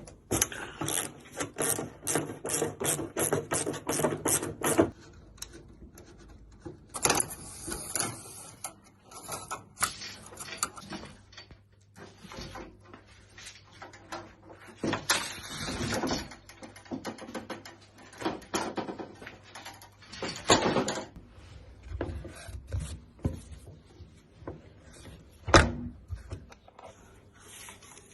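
Hand tools and metal door parts being worked on a car door being dismantled: a fast, even clicking for about five seconds, then scattered knocks and clunks, with one sharp loud knock near the end.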